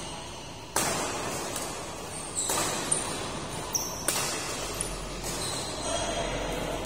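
Badminton rally: rackets strike the shuttlecock three times, about a second and a half apart, each hit echoing in the hall. Short high shoe squeaks on the court floor come between the hits.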